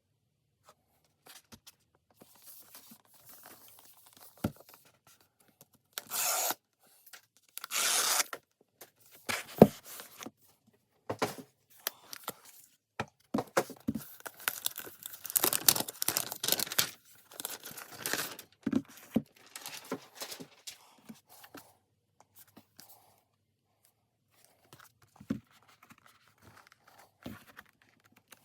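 Cardboard and paper packaging of a keyboard box being opened: two tearing rips about six and eight seconds in, then a busy stretch of rustling, crinkling, scraping and light knocks as the box and its contents are handled, with scattered taps near the end.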